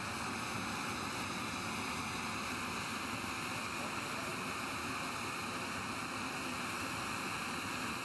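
Propane gas burner of a raku kiln running with a steady, even rushing hiss.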